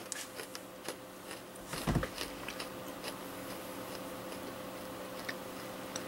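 A person chewing crunchy pretzel snacks: scattered short crunches and clicks, with one louder thump about two seconds in.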